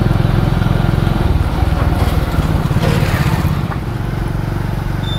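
A vehicle engine running steadily while under way, heard from on board as a dense, low pulsing rumble that eases slightly a little past halfway.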